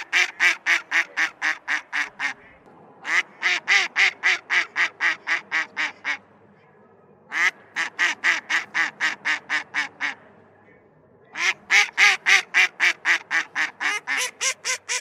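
Mallard hen quacking in repeated descending series: four bouts of about a dozen quacks at roughly four a second, each starting loud and fading off.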